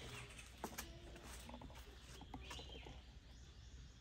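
Quiet outdoor ambience with a few short bird chirps, one at the start and another about two and a half seconds in, and a few faint clicks in the first second or two.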